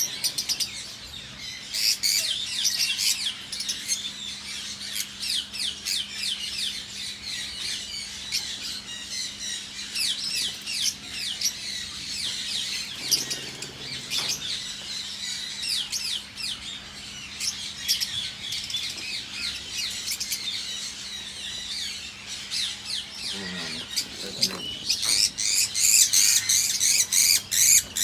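A flock of lovebirds chattering: many rapid, high-pitched chirps overlapping throughout, growing louder and denser near the end.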